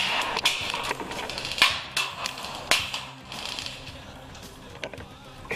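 Airsoft guns firing: short bursts of rapid clicking shots and scattered single sharp cracks, busiest in the first three seconds, thinning out, then one loud crack at the very end.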